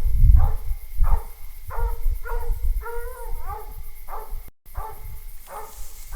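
A coonhound barking at the tree over and over, about two barks a second, one drawn out and bending in pitch about three seconds in: she has her quarry treed. A low rumble sits under the barks, and the sound cuts out for a moment a little after four seconds.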